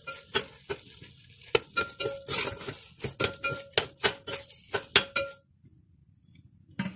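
Metal spoon stirring thick, hot carrot halwa in a metal pot: a fast run of scrapes and clinks against the pot with a faint metallic ring, stopping about five seconds in. A single clank follows near the end.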